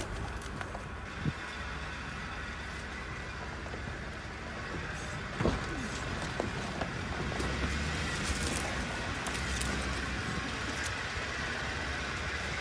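Engine of a 4x4 running steadily at low speed as it crawls along a rutted dirt trail, with scattered clicks and knocks from the vehicle going over the bumps.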